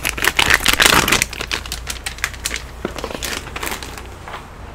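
Plastic bags of parts crinkling and a plastic tray clattering as the tray is handled and moved away: a dense run of crackling and clicks in the first second or so, then sparser rustles and clicks.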